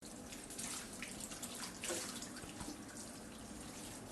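Water running from a tap or hand shower and splashing into a basin, with irregular drips and splashes.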